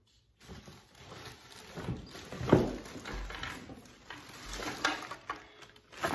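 Rummaging in a plastic storage tote: irregular rustling and scraping of items being moved about, with light knocks and one sharper knock about two and a half seconds in.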